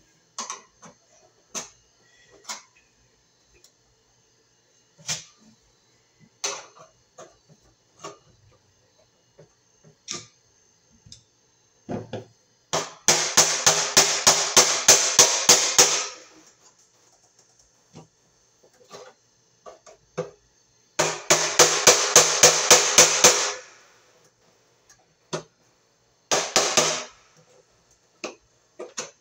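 Pliers striking the sheet-metal housing of an electric baseboard heater in two runs of rapid metallic taps, about four a second, each lasting around three seconds, the second starting about eight seconds after the first. Scattered clicks and knocks of tools handled against the housing in between.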